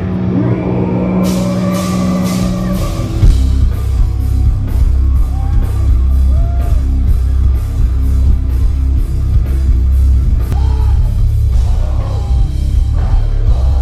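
Heavy metal band playing live over a festival PA: a held note rings out, cymbals come in just over a second in, and about three seconds in the full band drops into a heavy, low riff with drums.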